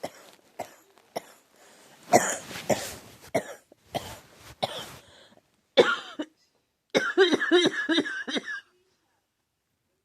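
A person coughing repeatedly: a few short coughs, a longer harsh hacking cough about two seconds in, then more single coughs, and near the end a rapid run of strained, voiced coughs that stops suddenly. It is the painful cough of someone who says they have pneumonia.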